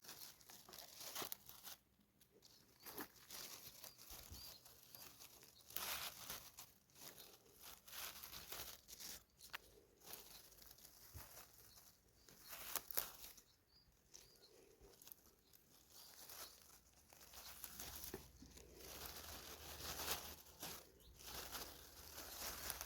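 Faint, irregular rustling and crinkling, with a few sharp clicks scattered through it.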